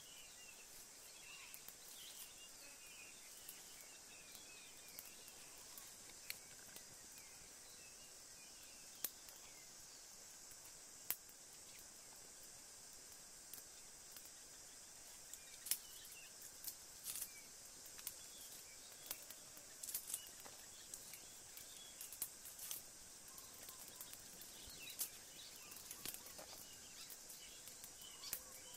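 Quiet woodland ambience: a steady high insect hiss with faint bird chirps, broken by scattered sharp clicks and crackles, which come most often in the second half.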